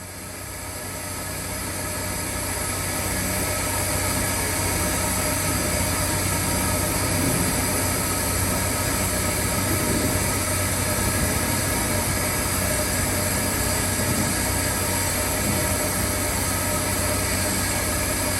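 Large 250 HP mobile steam boiler running: a steady, loud mechanical roar with several constant whining tones. It swells over the first few seconds, then holds even.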